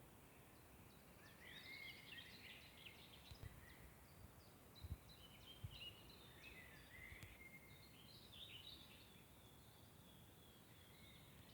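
Faint songbirds singing in a forest, several short chirping and warbling phrases overlapping. A few soft low thumps sound in the middle.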